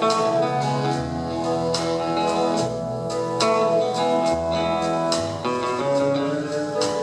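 Instrumental passage of a slow country ballad: plucked guitar picking a melody over bass, between sung lines.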